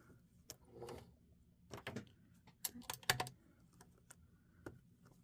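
Irregular small clicks and taps from handling fabric, thread and tools at a sewing machine, clustered around two and three seconds in, with a brief soft rustle near the start.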